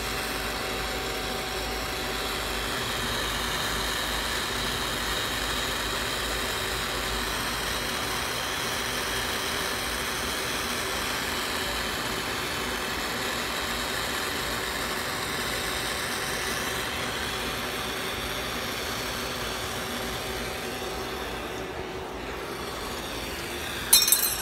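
Lampworking bench torch burning steadily with an even rushing hiss, a faint steady hum underneath. Near the end there is a brief, sharp clatter.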